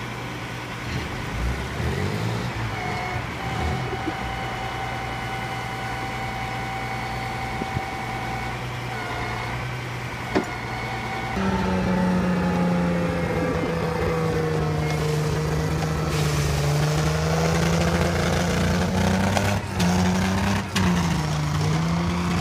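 Alvis Striker tracked armoured vehicle's engine running as the vehicle moves off, growing louder about eleven seconds in with a wavering, steady pitch as it drives past.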